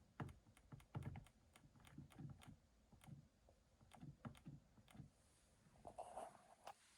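Faint, quick clicks of a digital thermostat's buttons being pressed over and over, a few a second and unevenly, raising the heating setpoint from all the way down.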